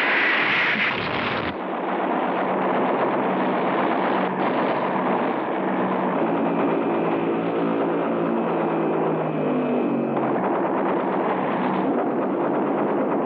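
A noisy blast in the first second and a half, then the steady drone of a piston aircraft engine with a dense rattle over it, like the sound track of a low-level strafing attack.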